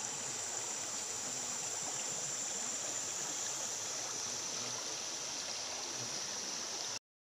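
Shallow rocky forest creek running over stones, a steady flowing-water hiss with a steady high-pitched whine above it. The sound cuts off abruptly about seven seconds in.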